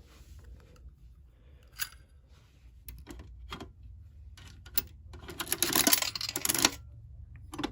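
Coin-operated vending machine being worked: scattered clicks, then a dense metallic clatter lasting about a second and a half past the middle, as quarters go in and the dispensing knob is turned.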